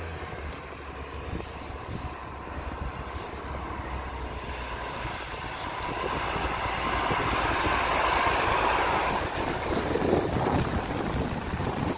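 Iveco side-loader garbage truck's diesel engine and its tyres hissing on the wet road, growing steadily louder as it approaches and passes close by, loudest about eight to ten seconds in.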